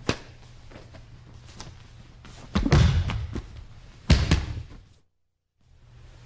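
Two heavy thuds with scuffling as bodies shift on a grappling mat, about a second and a half apart, after a sharp click at the start. A steady low electrical hum runs underneath, and the sound cuts out completely for about half a second near the end.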